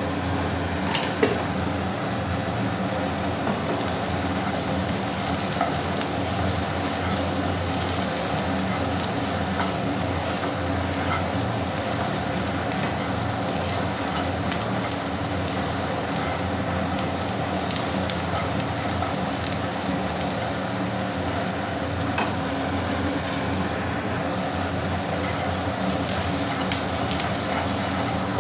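Peanuts, chopped onion and spices sizzling steadily in hot oil in a non-stick kadai, with occasional clicks and scrapes of a spatula stirring them. One sharper click comes about a second in.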